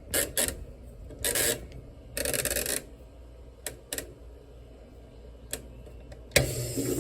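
The timer knob of a GE top-load washer being turned and pushed in and out, clicking and ratcheting several times. Near the end the washer starts with a sudden low hum and water rushing in to fill.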